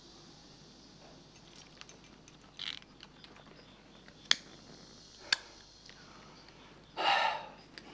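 A cigarette lighter clicked twice, about a second apart, to light a cigarette. Near the end comes a short, loud breath out.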